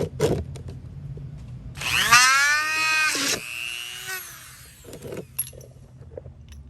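Power drill spinning up with a rising whine, running for about a second and a half, then cutting off and winding down with a falling tone, while a small hole is drilled for a threaded hinge pin in an RC truck's suspension. A few handling clicks come just before it.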